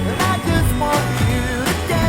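Background pop song with a steady beat, bass and a melody line between sung phrases.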